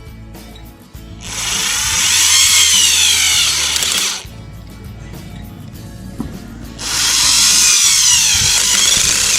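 Foster FSD-010 corded power screwdriver driving a screw into soft wood at a low clutch torque setting. It runs in two bursts of about three seconds each, the motor pitch wavering under load. Background music plays underneath.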